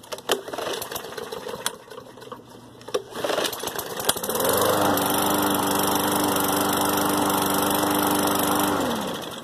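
Columbia push mower's Briggs & Stratton engine started by pulling the cord without priming, catching about four seconds in after a few knocks from handling. It runs steadily for about four and a half seconds, then shuts off and winds down, falling in pitch.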